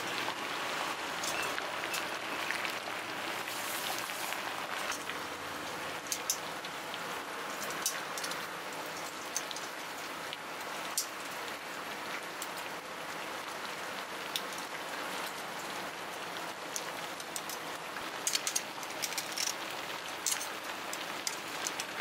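Large pot of water at a rolling boil, bubbling steadily around noodles in a steel strainer basket, with scattered sharp clicks, several close together near the end, as metal tongs knock against the basket.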